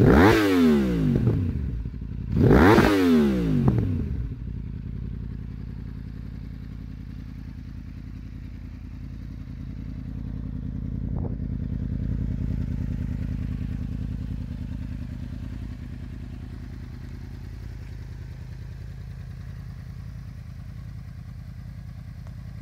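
2015 Yamaha YZF-R1's crossplane inline-four, breathing through an Akrapovič carbon slip-on muffler, is blipped twice at a standstill, the revs climbing and falling quickly each time. It then settles into a steady idle.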